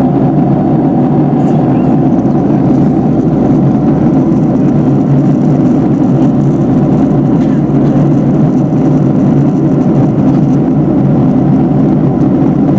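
Steady cabin noise of a Boeing 757-300 airliner in cruise, heard inside the cabin: an even, unbroken low rumble of jet engines and airflow.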